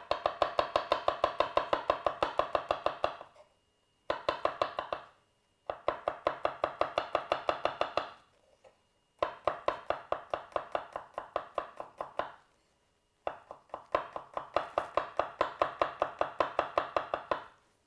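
Chef's knife rapidly chopping garlic cloves on a wooden cutting board, about six strokes a second, in five runs with short pauses between them.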